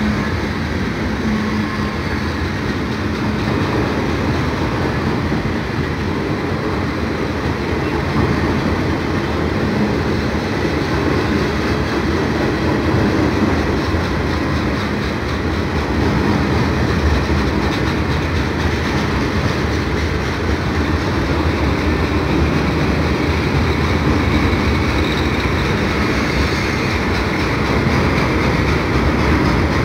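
A freight train's tank cars and boxcars rolling past at steady speed, their steel wheels making a continuous, even noise on the rails.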